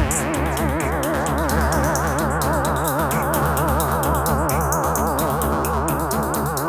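Electronic music: several warbling, rapidly wobbling synthesizer tones over a steady bass drone, with light high ticks like a hi-hat. The kick drum is absent.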